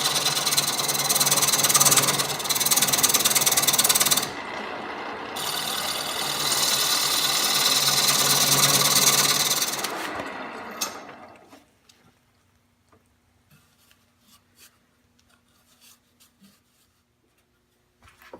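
A tool working the surface of a walnut bowl spinning on a wood lathe: a steady, loud rasping hiss that breaks briefly about four seconds in. Near the ten-second mark it fades away over about a second, leaving near silence with a few faint clicks.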